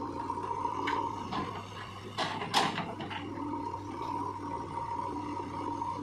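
JCB 3DX backhoe loader's diesel engine running under load with a steady whine as the backhoe arm digs, with several sharp knocks in the first three seconds, the loudest about two and a half seconds in.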